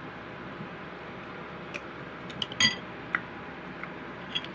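Tableware clinking: several sharp, short clinks of utensils on a dish starting a couple of seconds in, the loudest about two and a half seconds in, over a steady background hiss.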